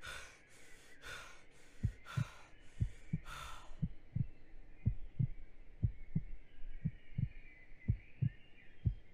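Heartbeat sound effect: paired low thumps (lub-dub) about once a second, over quick heavy breaths in the first few seconds. A faint high ringing tone runs under the second half.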